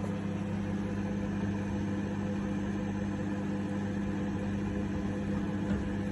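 Sharp R242BKW 800 W microwave oven running, a steady low hum with fan noise.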